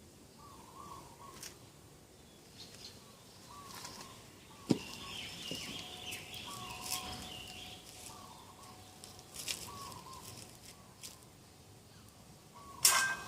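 Birds calling in the morning: a short, low call repeats every second or so, with higher chirping in the middle. There is a sharp click about five seconds in and a brief loud noise near the end.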